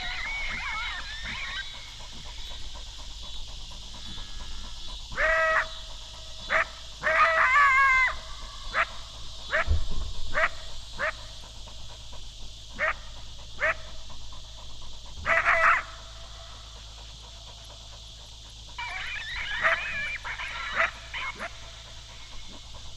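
Canines barking: a run of short, sharp barks, then high, wavering yip-howls near the end.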